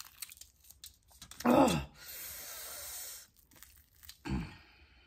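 A crispy breaded fried chicken wing flat is torn apart by hand, its crust crackling with a steady hiss for about a second. It comes with two short, falling voiced sounds from the eater, about a second and a half in and again near the end.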